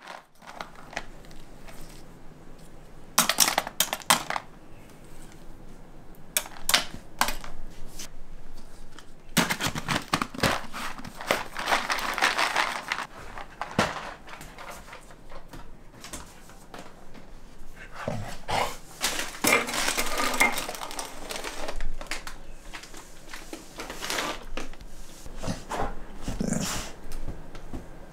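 Small dry dog biscuits clattering and rattling in a plastic treat jar as it is handled, in sharp bursts a few seconds in and a longer spell of dense rattling near the middle, with a golden retriever barking now and then.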